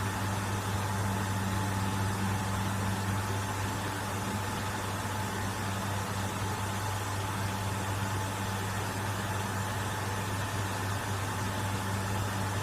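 Steady low electrical mains hum with a faint, even high whine over a light hiss, unchanging throughout.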